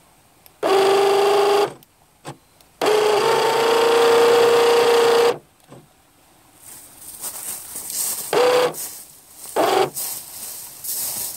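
Small electric motor of a toy RC boat whining in bursts of throttle: about a second, then about two and a half seconds, then a couple of short blips. From about halfway a rushing hiss runs underneath.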